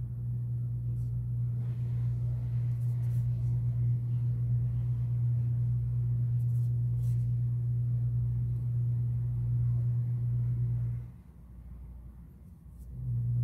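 A steady low hum that cuts out about eleven seconds in and comes back near the end.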